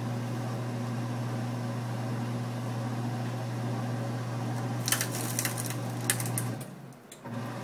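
Hard drive hole punch's motor humming steadily as it drives the punch into the drive, with a few sharp cracks about five to six seconds in as the punch breaks through. The motor cuts out near the end and starts again a moment later.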